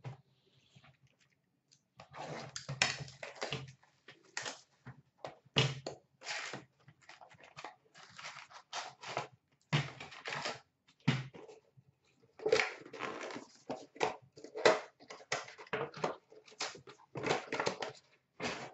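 A box of 2005-06 Fleer Ultra hockey cards being torn open by hand and its foil packs pulled out and crinkled: a long run of irregular crackling and ripping, starting about two seconds in.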